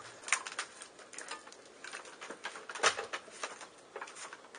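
Cardboard packaging being cut open and handled: irregular crackles and snaps, with one louder knock about three seconds in.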